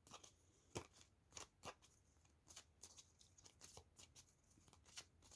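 Faint, scattered clicks and light rustles of tarot cards being handled and laid down on a table, about a dozen short ticks with near silence between them.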